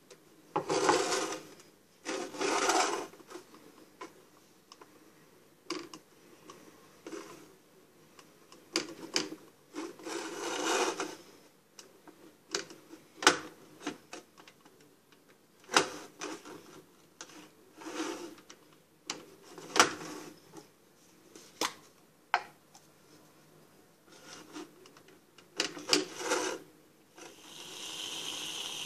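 Plastic parts of a Pie Face game toy being handled: irregular rubbing, clacks and clicks in short bursts. A steady hiss starts near the end.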